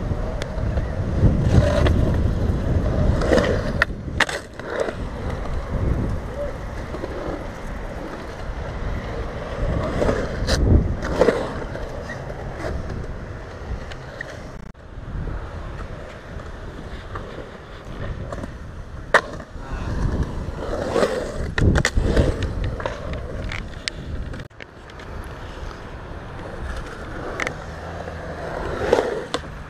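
Skateboard wheels rolling on concrete, a steady rumble that swells and fades as the board rides over the park's humps and transitions, with sharp knocks of the board now and then.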